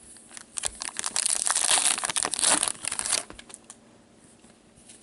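Crinkly plastic wrapping being handled. A dense run of crackling starts about a second in and stops after about two seconds, with a few light clicks around it.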